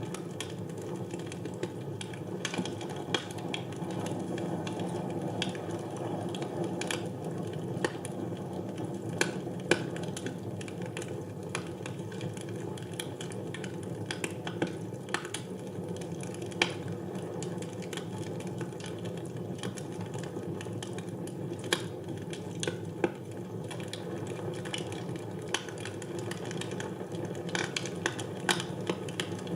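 Fire burning in a fireplace: a steady low rush of flames with irregular crackles and pops, a few of them sharper and louder than the rest.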